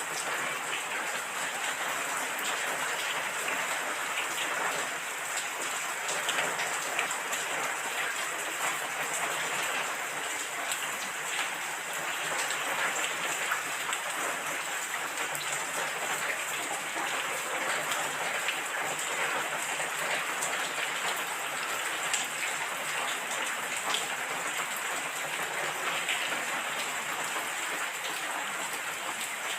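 Steady rain falling, a dense patter of drops on surfaces.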